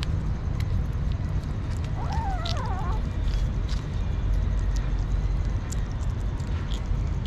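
Kittens eating raw minced meat and dry kibble from a plate: many small wet chewing and smacking clicks over a steady low rumble. About two seconds in, one kitten gives a short wavering call that rises and falls in pitch.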